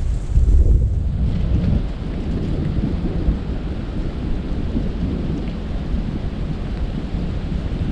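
Strong wind buffeting the microphone: a loud, gusting low rumble with no distinct events.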